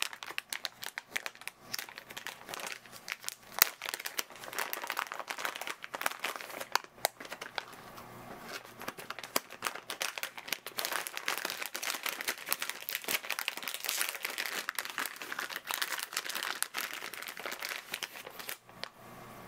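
Shiny plastic packaging pouch being crinkled, torn at the corner and pulled open by hand, a dense run of irregular crackles with one sharp snap about three and a half seconds in; the crinkling stops shortly before the end.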